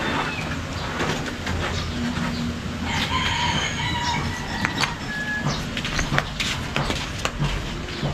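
A rooster crows about three seconds in, over a steady outdoor background with scattered light clicks and knocks.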